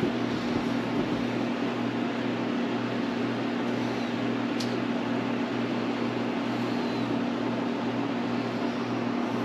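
Steady machine hum and whir, like a fan or air-conditioner running, with a low drone that does not change. A single small click about four and a half seconds in.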